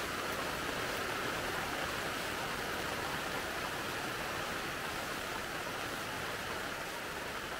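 Steady hiss and rumble of a car driving along a wet dirt road, heard from inside the cabin.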